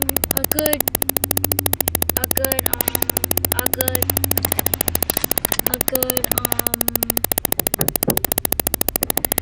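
Inside a car: a fast, even crackle runs over a low cabin rumble and faint voices. The rumble fades out about five seconds in.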